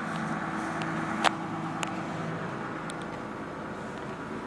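Komatsu PC300 excavator's diesel engine idling steadily, with a single sharp click about a second in.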